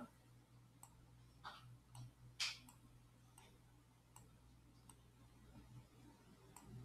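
Faint computer mouse clicks, about seven of them at irregular intervals, over near silence.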